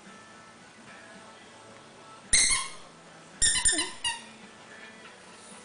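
Maltese puppy giving high-pitched yips while playing tug: one sharp yip a little past two seconds in, then a quick run of several more about a second later.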